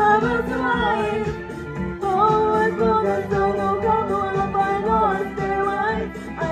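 Karaoke: a woman singing into a microphone over a backing track, with long sung notes that bend in pitch.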